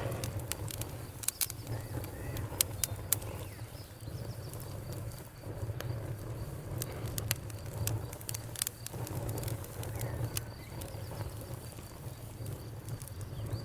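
Campfire crackling, with irregular sharp pops and snaps over a low steady noise from the burning wood. A faint high steady cricket trill runs beneath, clearest near the end.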